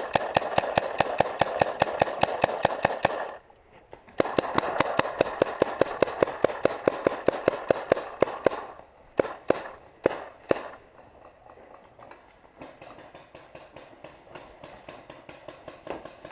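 Paintball marker firing rapid strings of shots, about ten a second, in two long bursts broken by a short pause about three seconds in. A few single shots follow, then fainter rapid fire from farther off.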